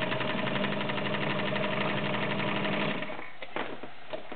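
A vintage all-steel Kenmore 1303 sewing machine with a 1-amp motor sewing at speed, its needle strokes rapid and even over a steady motor hum. It stops about three seconds in, and a few separate clicks follow.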